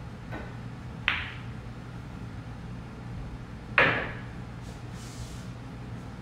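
Pool shot: a faint tap of the cue tip on the cue ball, then a sharp click of the cue ball striking an object ball about a second in. A louder clack with a short ring follows nearly four seconds in.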